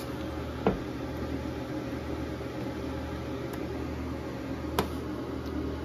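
Steady hum and fan noise from an inverter powering a heater of about 1400 watts under continuous load, with two sharp clicks, one under a second in and one near the end.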